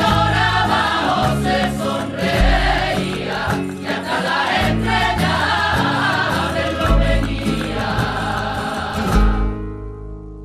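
Choir singing over instrumental backing with sustained low notes. About nine seconds in, the voices and upper instruments stop and a low chord rings on, fading.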